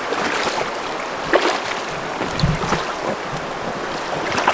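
River current rushing steadily past an angler wading while he plays a fish, with a few short sharp knocks, one about a second and a half in and one near the end.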